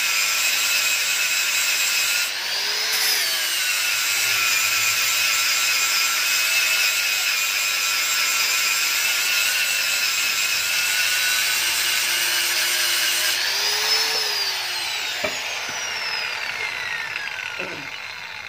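Electric angle grinder grinding a steel motorcycle exhaust pipe to smooth the weld seams, a steady high whine over a grinding hiss. The whine dips briefly twice. Near the end the grinder is switched off and its whine falls away as the disc spins down.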